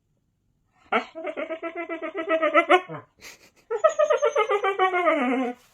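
An animal's two long wavering, pulsing calls, about two seconds each, the second sliding down in pitch at its end.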